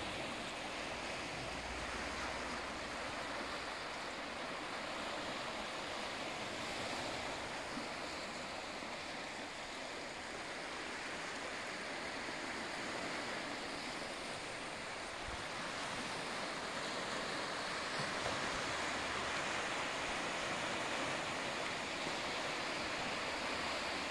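Small sea waves washing steadily onto a stony shore.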